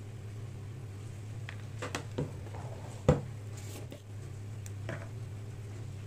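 A plastic measuring spoon handled over a ceramic bowl while spices are sprinkled in: a few light clicks and taps, with one sharp knock about three seconds in, over a steady low hum.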